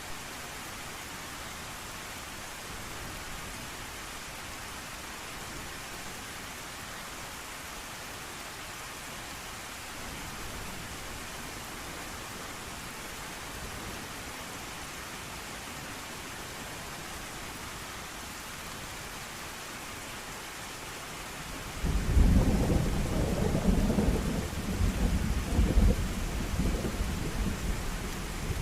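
Steady heavy rain, with a loud rolling peal of thunder that breaks in suddenly about three-quarters of the way through and keeps rumbling to the end.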